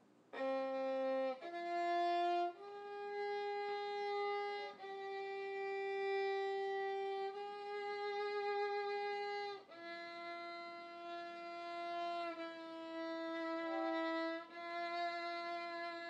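Slow solo violin melody of long held notes, about eight in all, each sustained for one to two seconds or more.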